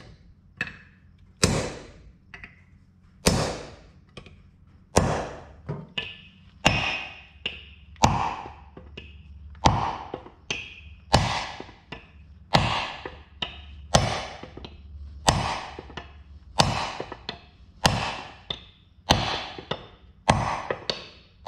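A mallet striking a black walnut wedge, driving it into the kerf of an axe handle to lock the axe head on: about fourteen sharp knocks at a steady pace, roughly one every second and a half.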